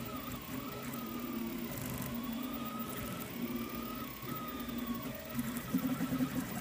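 Delta 3D printer's stepper motors whining in shifting pitches as the print head moves about, over the steady hiss of the hotend cooling fan. The motor tones get a little louder near the end.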